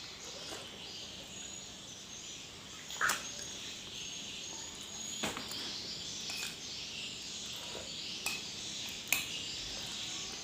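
Eating sounds: about five short, sharp clicks of utensils or fingers against a plate, scattered through, the loudest about three seconds in, over a steady high-pitched hiss.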